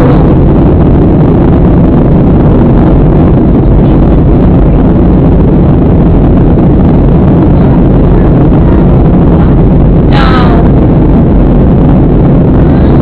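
Steady, loud cabin noise of a Southwest Airlines Boeing 737 in flight: the jet engines and the rushing airflow blend into one even, low drone with a few steady low hums under it.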